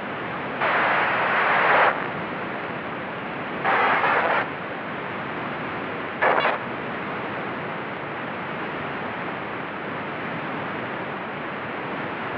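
Steady hiss of broadcast static, broken by louder bursts of noise: one lasting over a second from about half a second in, another around four seconds in, and a short one just past six seconds.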